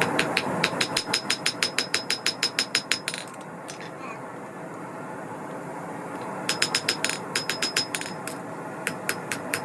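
Hand hammer striking hot 8670 steel on an anvil while forging a knife blank: quick, evenly spaced ringing blows, about five a second. The hammering stops for about three seconds a third of the way in, leaving a steady hiss, then resumes in short runs.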